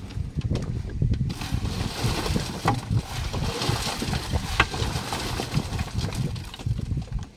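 Wet concrete being mixed, sloshing and scraping over a continuous low rumble, with a few sharp clicks.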